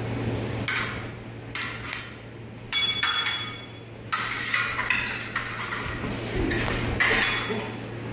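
Steel epee blades clashing and scraping together in irregular bursts of clinks, some with a brief metallic ring.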